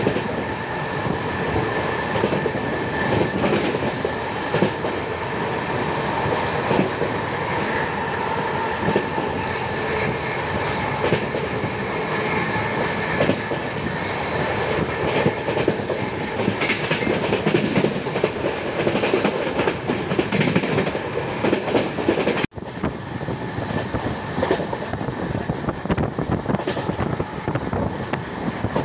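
Tamil Nadu Express passenger train running at speed: a steady rumble of wheels on the rails with a rapid clickety-clack over the rail joints. The sound drops out for an instant about three-quarters of the way through, then carries on unchanged.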